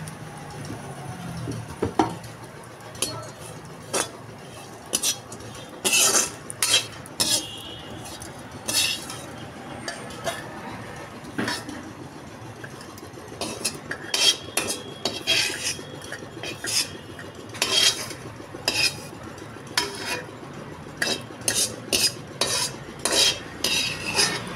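Metal spatula stirring and scraping grated dried coconut in a metal kadhai as it dry-roasts: irregular scrapes and taps of metal on metal, about one or two a second.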